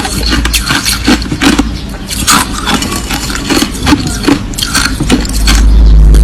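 Crushed ice being chewed close to the microphone: irregular crisp crunches, several a second. About five seconds in, a loud low rumble swells up under the crunching.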